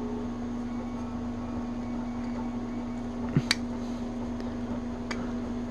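Steady electrical hum in the room with two small sharp clicks about a second and a half apart, from the plastic parts of a 3D-printed tricorder prop being handled and its fragile clips worked.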